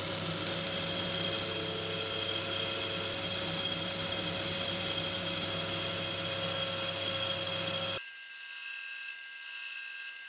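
Metal lathe running while a carbide insert tool turns a 1045 medium carbon steel bar: a steady mechanical hum with a whine of several steady tones. About eight seconds in, the sound changes abruptly to a thinner, higher whine without the low hum.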